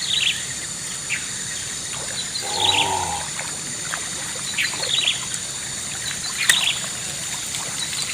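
Small birds chirping in short, repeated calls, with a brief hum-like sound about two and a half seconds in and a single sharp click about six and a half seconds in.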